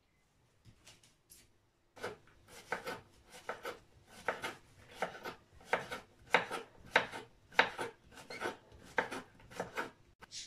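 Kitchen knife chopping peeled zucchini into chunks on a wooden cutting board: a steady run of short cutting strokes, two or three a second, starting about two seconds in.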